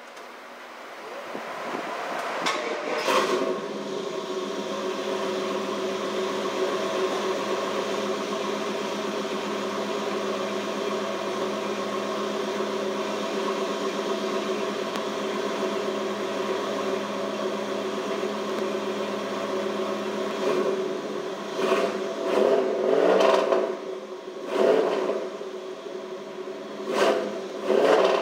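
1995 Pontiac Trans Am's 5.7-litre LT1 V8 on its stock exhaust. It comes up to a steady idle over the first few seconds, then gets a series of short throttle blips in the last several seconds.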